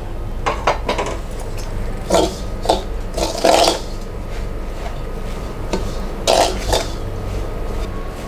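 A metal spoon scraping and clinking against a stainless steel bowl as rice flour, grated coconut and moong dal are stirred with hot water into a crumbly dough. The scrapes come in short clusters, the loudest about three and a half and six and a half seconds in, over a steady low hum.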